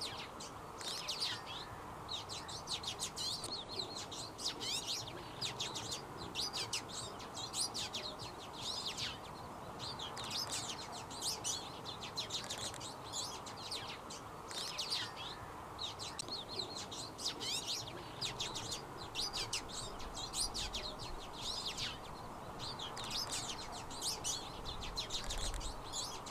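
Twite singing: quick phrases of fast, twittering chirps, one after another, over a steady background hiss.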